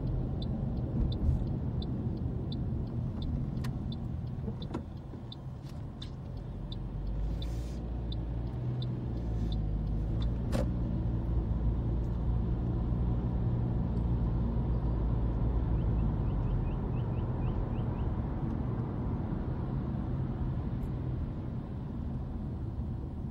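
Car cabin noise: engine and tyre rumble, with the turn-signal indicator ticking about twice a second during a left turn at a roundabout until it stops about ten seconds in. The rumble then grows as the car picks up speed.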